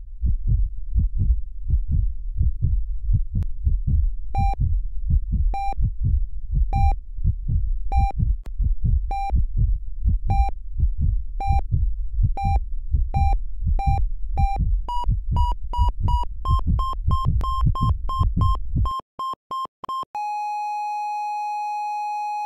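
Heartbeat sound effect pulsing steadily, joined about four seconds in by the beeps of a hospital heart monitor, about one a second. The beeps quicken and rise a little in pitch, the heartbeat stops, and near the end the monitor goes into one long unbroken flatline tone, the sign of the heart stopping.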